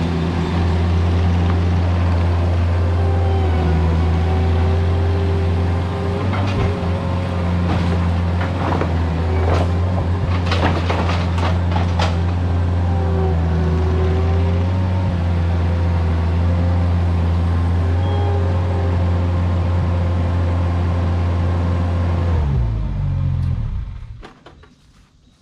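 Vermeer mini skid steer's engine running steadily under load, its hydraulic whine shifting in pitch as the machine works. About ten seconds in comes a cluster of sharp cracks and knocks of deck timber breaking. Near the end the engine is shut off and winds down.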